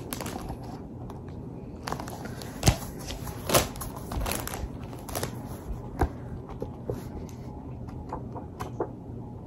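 Handling noise of a paper planner booklet: soft rustling with scattered taps and clicks as the undated monthly calendar is moved about and opened, with a sharper knock a little over two and a half seconds in.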